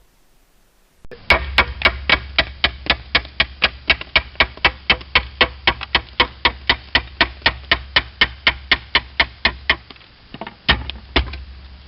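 Slater's hammer striking a slate shingle in quick, even taps, about four or five a second, cutting the slate down to a marked line. The run of taps stops just before ten seconds in, followed by two more strikes near the end.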